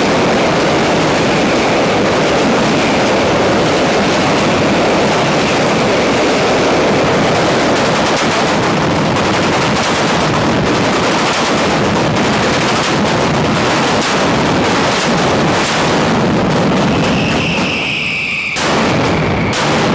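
A mascletà firecracker barrage: a dense, continuous rattle of firecrackers going off in rapid succession. Near the end a shrill firework whistle sounds for about a second, then the bangs carry on.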